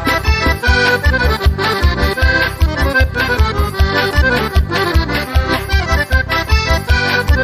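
Forró music with an accordion playing the lead melody over a steady, danceable beat. This is an instrumental break with no singing.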